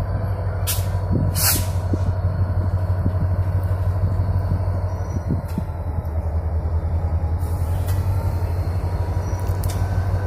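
Diesel freight locomotive passing slowly at close range, its engine running with a steady low throb. Two short hisses come about a second in.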